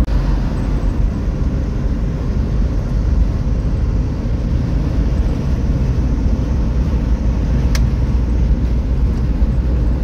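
Steady low rumble of a car driving along at road speed, tyre and engine noise heard from inside the cabin, with a single brief click near the end.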